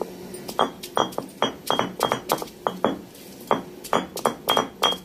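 Stone roller of an ammi grinding stone knocking down onto the stone slab to crush ginger and garlic: a quick run of sharp stone-on-stone clinks, about three a second.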